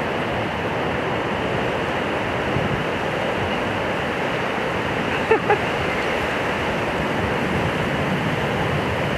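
Strong wind buffeting the microphone over the steady wash of wind-driven waves breaking on the lake shore. Two brief pitched cries stand out about five seconds in.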